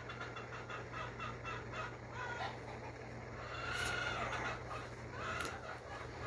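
Faint bird calls: a quick run of short clucking calls, then a couple of longer arching calls around the middle, over a steady low hum. Two brief soft clicks are heard in the second half.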